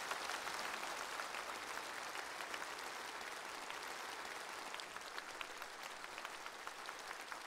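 Large seated audience applauding steadily in a big auditorium: a dense, even wash of many hands clapping.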